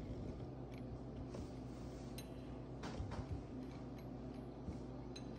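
Scattered light metallic clicks and clinks from the steel rods and fittings of a bearing puller being handled by hand, over a steady low hum.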